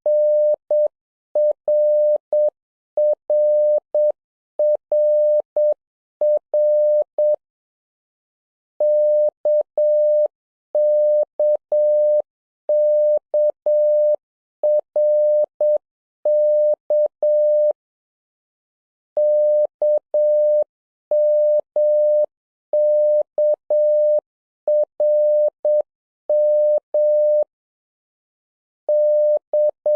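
Morse code practice tone: a single mid-pitched beep keyed on and off in dots and dashes, in a receiving drill for the letters K, M and R. The characters come in steady groups, with longer pauses about eight seconds in, near eighteen seconds and near twenty-eight seconds.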